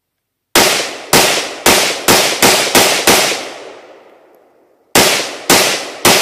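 AK-47 rifle firing 7.62×39 mm rounds semi-automatically: seven shots in a quick, quickening string, a pause of nearly two seconds, then three more, each shot trailing off in echo.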